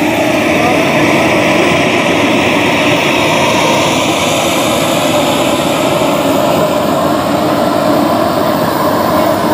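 Jet engine of a radio-controlled Viper jet model running steadily while the model taxis. It makes a loud, even rush with a thin high whine above it.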